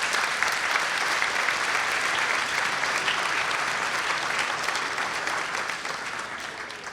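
Audience applauding, steady and sustained, then fading out near the end.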